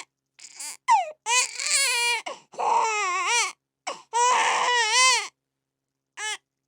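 Infant crying in a run of high, wavering wails broken by short catches of breath, with a brief short cry near the end.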